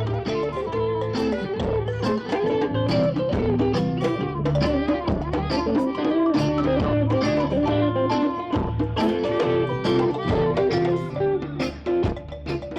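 Live band music: electric guitar playing over a steady bass line and drums, with a brief drop in loudness just before the end.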